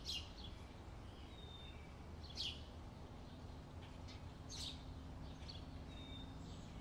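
A bird repeating a quick, steeply falling chirp about every two seconds, with fainter short high whistles in between, over a faint steady low hum of outdoor background noise.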